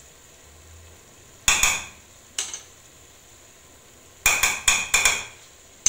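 A spoon knocking against a stainless steel cooking pot as ground spices are shaken into it: one sharp clink about a second and a half in, a lighter one a second later, then a quick run of about four knocks near the end.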